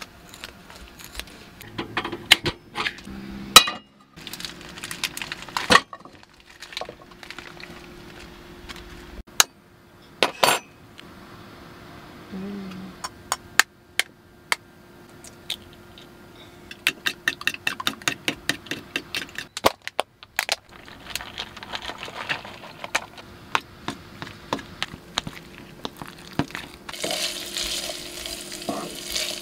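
Kitchen prep clatter: scattered clinks of a fork and utensils against a bowl and dishes, with a quick run of rapid clinks about two-thirds of the way in as eggs are beaten with a fork. Near the end, diced bacon sizzles in a pan while it is stirred with a wooden spoon.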